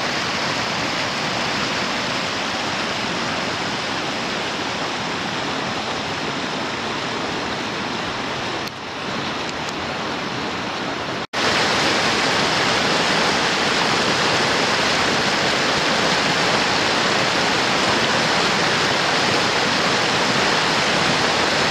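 Whitewater rapids rushing over and between boulders: a steady, loud rush of water. It breaks off for an instant about eleven seconds in and comes back a little louder.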